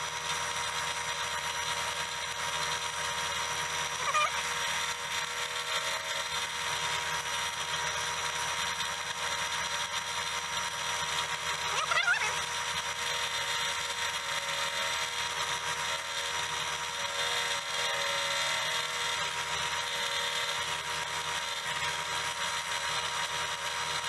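Fleetwood heavy-duty drill press running with a sanding drum in its chuck, a steady whine, as a small wooden wing is sanded against the drum. Two brief louder scrapes come about four and twelve seconds in.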